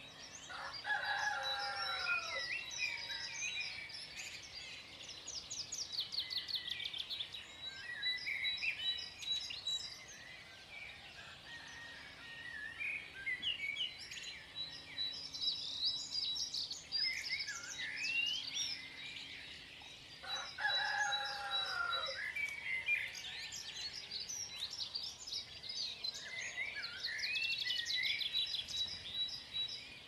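Dawn chorus of songbirds chirping, with rapid high trills, and a rooster crowing twice, about a second in and again about twenty seconds later.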